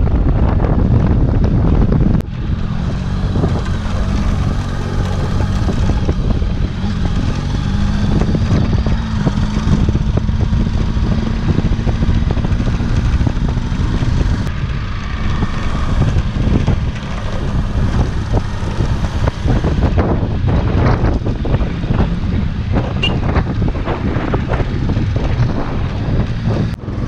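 Hero Xpulse 200 motorcycle's single-cylinder engine running at a steady cruise on a gravel track, with wind on the microphone. Wind noise is heaviest in the first two seconds, then drops abruptly to a steadier engine hum, with a few knocks and rattles later on.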